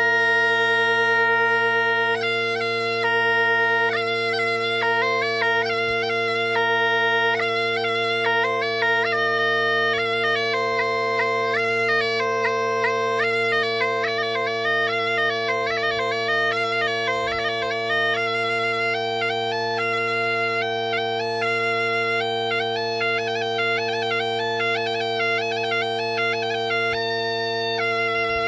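Gaita de foles (Portuguese bagpipe) playing a tune: the chanter melody moves over a steady, unbroken drone, the notes coming quicker in the middle stretch.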